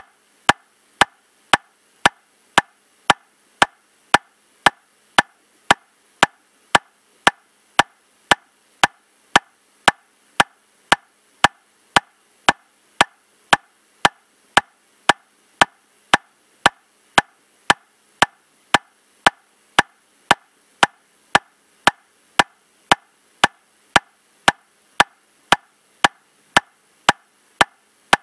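Metronome clicking steadily at 115 beats per minute, about two even clicks a second, each click alike with no accented beat.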